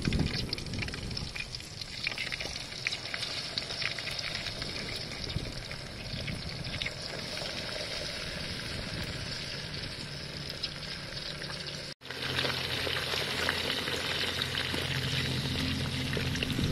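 Whole marinated quails frying in hot oil in a steel wok: a steady sizzle with many small crackles and spits. It cuts out for an instant about twelve seconds in, then carries on with a faint low hum underneath.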